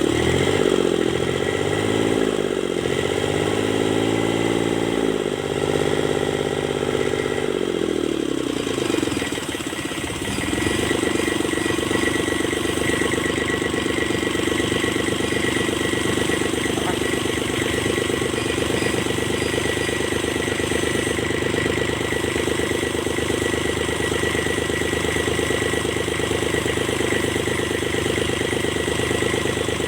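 Kubota D905 three-cylinder diesel engine revved up and down about four times, then, after a brief dip, held running at a steady speed, with a steady high whine over the engine note.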